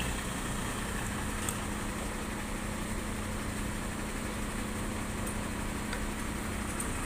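An engine idling steadily, a low even hum, with a faint click about a second and a half in.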